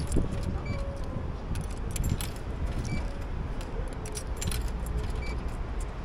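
Light, irregular metallic clinking and jingling over a steady low rumble of city traffic.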